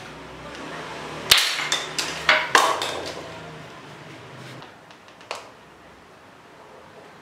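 Sharp clacks and knocks of hard plastic toy guns being handled: four in quick succession a little over a second in, then one more about five seconds in.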